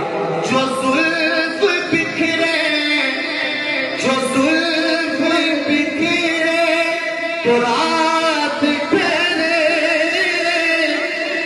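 A man singing a naat, an Urdu devotional song in praise of the Prophet, in long held notes with ornamented, wavering glides.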